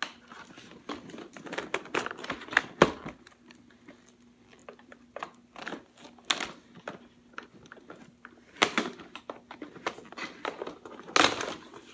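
Cardboard packaging and plastic toy-blaster parts being handled: irregular rustling and crinkling with sharp clicks and knocks, busiest in the first few seconds, with single louder knocks near the middle and near the end.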